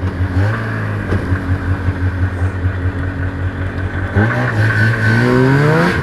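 The liquid-cooled two-stroke Rotax 494 engine of a 1997 Lynx G-Type Enduro 500 snowmobile runs at low revs. About four seconds in the revs rise as the sled accelerates.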